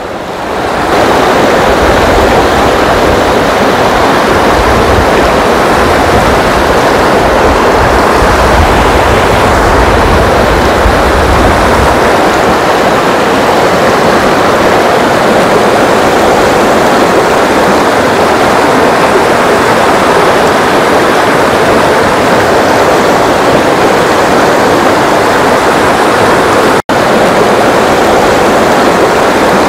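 Rushing river rapids: a steady, loud wash of water noise, with an added low rumble through the first dozen seconds. The sound cuts out for an instant near the end.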